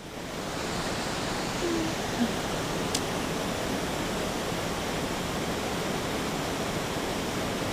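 Water pouring over a low weir and onto the rocks below, a steady rushing that fades in at the start. A single faint sharp click about three seconds in.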